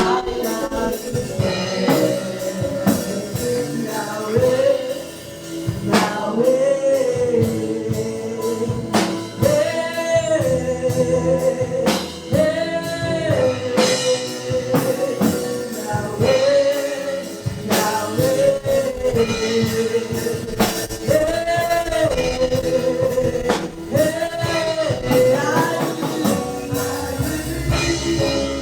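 Live gospel praise music: singing over a band with a steady drum beat and a held melody line that swells and falls every couple of seconds.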